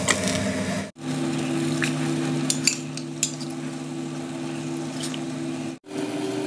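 A glass lid clinking against a stainless steel cooking pot several times as lemongrass is put into the water, over a steady low hum.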